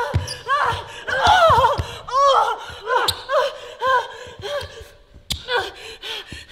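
Short, sharp effort cries and grunts from two women in a staged fight, coming one after another, over thuds of feet and bodies on the floor in the first couple of seconds. Two sharp clicks come about three seconds in and again about five seconds in.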